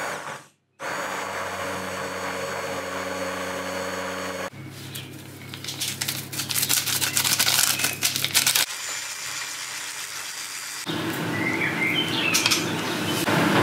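An immersion blender motor runs with a steady hum for about four seconds after a brief silence. It cuts abruptly to a stretch of rapid clicking and rustling, and later bird chirps sound in the background.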